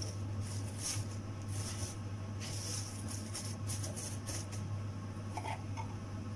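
Plastic cling film crinkling and rustling in short irregular bursts as it is pressed and tucked around dough balls on a counter, easing off near the end, over a steady low hum.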